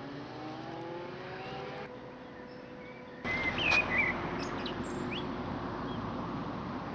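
A distant motor vehicle accelerating, its engine note rising slowly, for the first two seconds. About three seconds in, the background changes abruptly to a louder steady outdoor noise with small birds chirping repeatedly.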